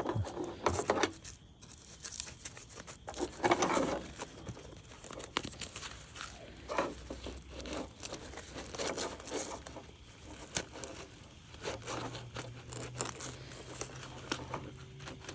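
Irregular rustling, crinkling and scraping of a stiff laminate chest rig and its fittings being handled, as a side panel is fitted by hand.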